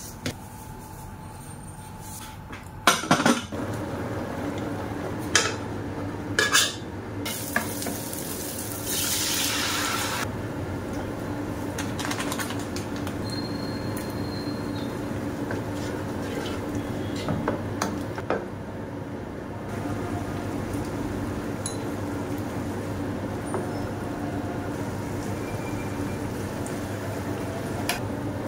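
Cookware sounds at a gas stove: metal pots and utensils knocking and clinking, with a few sharp knocks in the first seven seconds and a brief hiss about nine seconds in, over a steady low hum.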